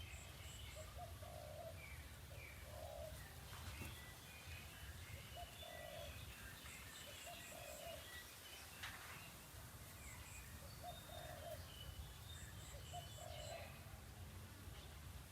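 Faint birdsong: a dove cooing in short low notes about every second and a half, with scattered higher chirps from small birds and quick high ticks in groups of three or four, over a faint steady low rumble.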